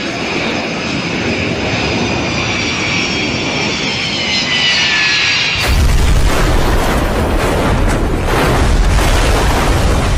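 Boeing 727 trijet's engines whining, the pitch falling as it comes in low, then about five and a half seconds in a sudden loud crash as it hits the ground, running on as a heavy rumble with cracking while the airframe breaks up and slides across the sand.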